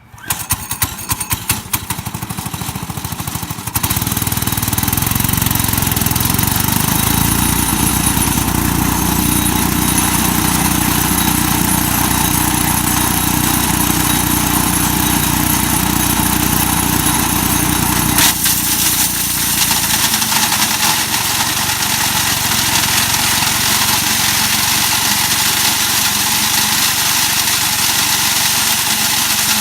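Mighty Mac wood chipper's engine starting, sputtering unevenly for a few seconds before settling into a steady, loud run.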